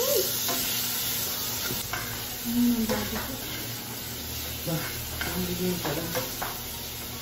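Mango slices sizzling steadily in hot caramelized butter and sugar in a frying pan. A fork clinks and scrapes against the pan now and then as they are stirred.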